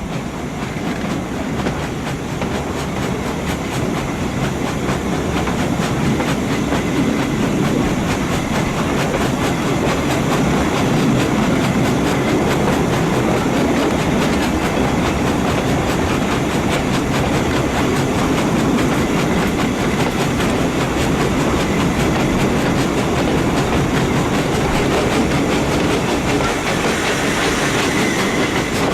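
Heritage train running slowly along the line at about 15 mph: a steady rumble of carriage wheels on the rails, growing a little louder over the first few seconds and then holding steady.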